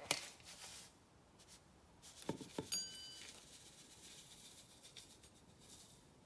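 Quiet handling of a clear bowl of granulated sugar: a click at the start, a few light knocks a little after two seconds in, and a short ringing clink just before three seconds. Then the sugar is poured faintly into a small stainless-steel bowl.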